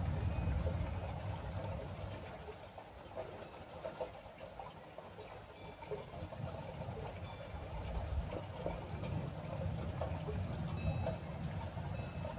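Storm rain falling, with water trickling and splashing. A low rumble fades away over the first few seconds and swells again in the second half.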